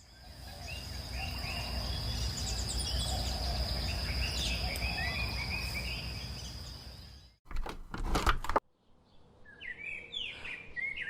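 Outdoor ambience of a steady low wind rumble with small birds chirping and a thin steady high whine, fading in. About seven seconds in it cuts to a second of loud rustling clatter, followed by quieter bird chirps.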